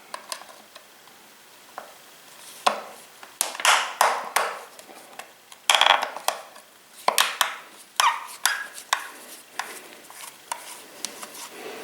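Hand tools clicking and scraping against a chainsaw's housing as screws are undone, in irregular short clicks and brief rasps.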